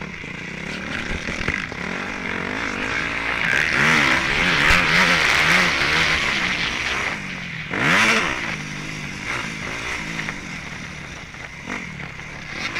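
Dirt bike engine heard on board while riding a dirt track, its revs rising and falling with the throttle. It is loudest a few seconds in, with a quick drop and rise in revs about eight seconds in.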